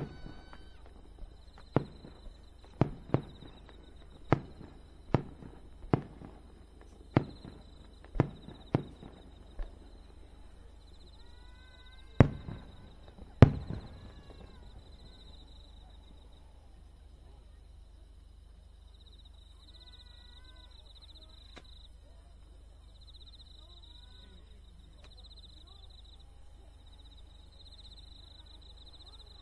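Aerial firework shells bursting, about a dozen booms in quick succession in the first half, the last two the loudest, each with a rolling echo. After them the display pauses and a steady chorus of chirping insects remains.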